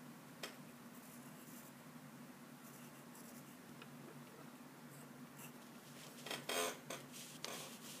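Pencil scratching across drawing paper in short, light strokes over a low steady hum, with a few louder rustles of the paper shortly before the end.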